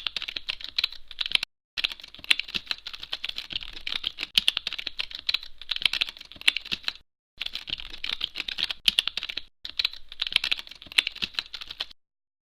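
Rapid, continuous keyboard typing clicks in three stretches, broken by short, abrupt silences. The clicks cut off suddenly about twelve seconds in.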